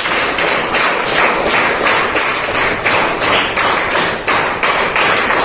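A class of students clapping together in a steady rhythm, about three claps a second.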